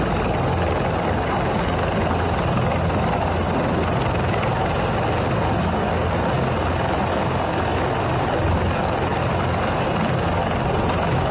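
Firefighting rescue helicopter hovering close overhead, its rotor and turbine engine running steadily and loudly with a low pulsing beat from the rotor.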